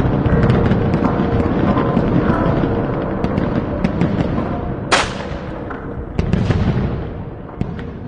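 Battle sound effect: a rapid scatter of gunshots and blasts over a heavy low rumble, slowly fading away, with one sharp crack about five seconds in.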